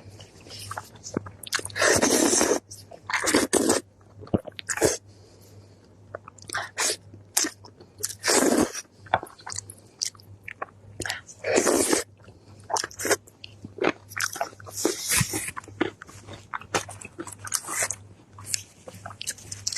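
Close-miked eating: a person biting, crunching and chewing food in quick, irregular bursts, some loud and longer, others short and soft.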